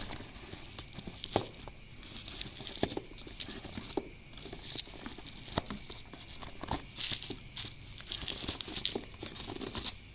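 Fingers rubbing, tapping and scraping on a cardboard smartphone box as its lid is worked open. The sound is a run of irregular small scrapes, clicks and rustles.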